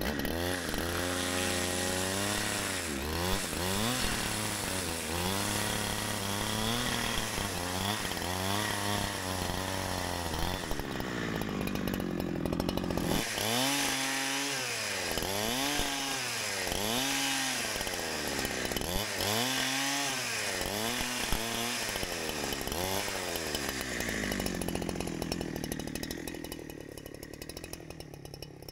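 Holzfforma G372xp two-stroke chainsaw with a 28-inch bar and crosscut chain ripping lengthwise through a log to cut a thin board. The engine pitch swings up and down again and again as it works through the cut, and it grows quieter near the end.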